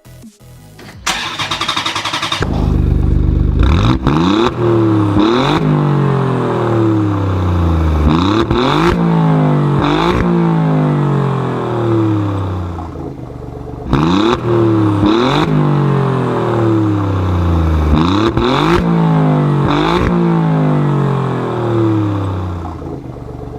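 An engine revved over and over: each rev jumps up sharply in pitch and then falls away slowly, about one every one and a half to two seconds.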